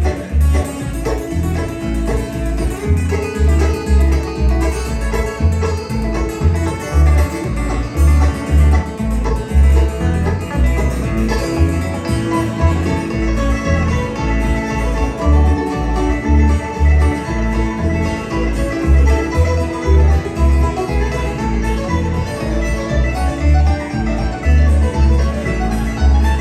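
Live bluegrass band playing an instrumental break: banjo and acoustic guitar picking over a bass thumping out a steady beat.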